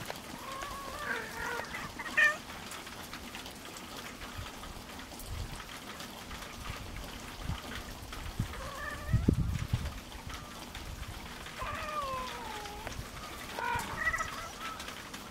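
Domestic cats calling during mating: about four drawn-out, wavering yowls a few seconds apart. A low thump about nine seconds in.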